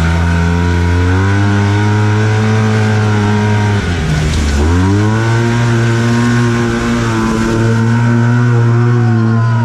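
Arctic Cat Wildcat Trail 700 side-by-side's twin-cylinder engine heard from inside the cab. It revs up under throttle, drops sharply in pitch about four seconds in as the throttle is lifted, then pulls back up and holds high revs while the UTV drives into a water hole.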